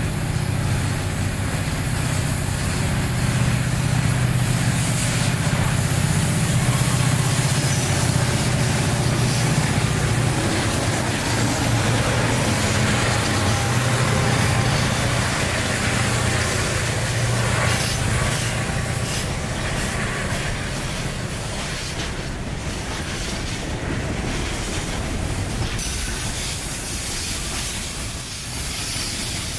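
Multi-unit diesel-electric freight locomotives running past close by, their engines a low drone that fades out a little over halfway through. After that come freight wagons rolling past, with steady wheel-on-rail noise, some clicks and a thin high squeal.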